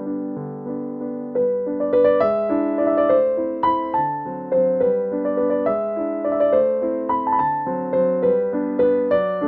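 Background music: a piano melody of struck notes, each fading away, picking up pace about a second and a half in.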